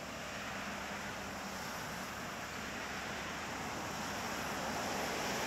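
Steady road traffic noise mixed with wind on the microphone, with a faint low engine hum; it swells slightly near the end as an oncoming car approaches.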